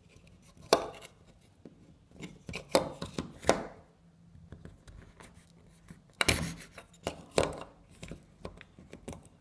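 Plastic Command strip hook being handled and pressed against a door: scattered sharp clicks and knocks with light rubbing between them, loudest a little under a second in and again about six seconds in.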